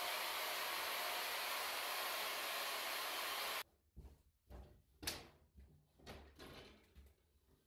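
Handheld power tool spinning a cup brush against a log wall, scouring off old whitewash: a steady scrubbing whirr that stops abruptly after about three and a half seconds. Then only soft rustling and a few light knocks of handling.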